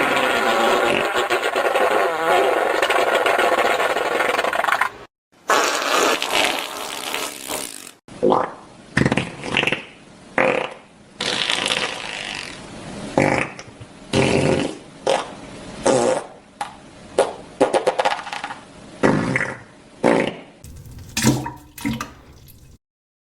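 Fart sound effect: one long drawn-out fart for about five seconds, a second of about three seconds after a brief gap, then a string of about twenty short farts, roughly one a second.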